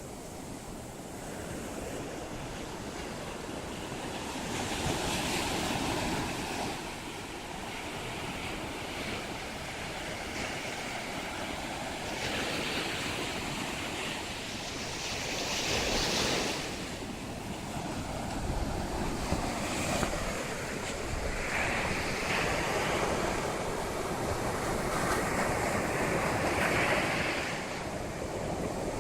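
Sea waves breaking and washing up a beach in strong wind, the surf swelling and falling every few seconds, with wind buffeting the microphone.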